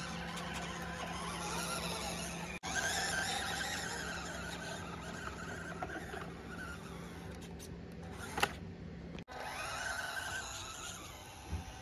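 Electric motors and geartrains of RC scale crawlers whining steadily as they climb. The sound cuts out briefly twice, and there is a sharp click about eight and a half seconds in.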